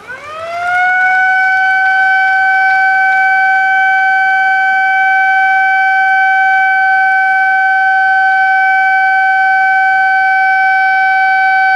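Siren sounded to mark the official opening of the event: its pitch rises over about the first second, then holds one steady, loud tone until it cuts off abruptly near the end.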